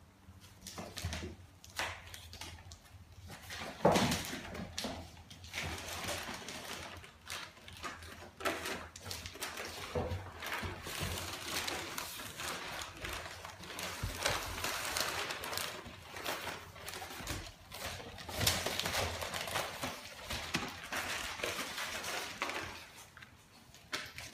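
Bandog puppies scrambling on newspaper in a wooden box: the paper rustles and crinkles under their paws, with scattered small taps. There is one sharp knock about four seconds in.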